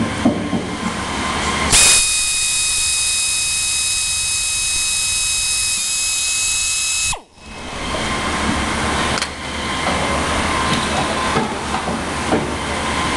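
Pneumatic air drill running at speed, a steady high-pitched whine with hiss, drilling a snap hole through the fender bra into a trike's fender. It starts about two seconds in and cuts off abruptly about seven seconds in. A steady low rumble runs underneath it and on afterwards.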